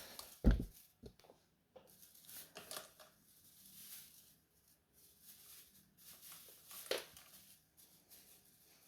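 Quiet handling sounds: faint rustling and light knocks, with a soft thump about half a second in and a sharp click near seven seconds.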